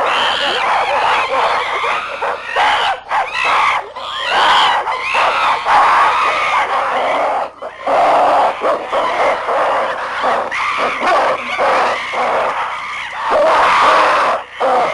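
A troop of apes calling all at once, many loud, high-pitched cries overlapping with hardly a pause.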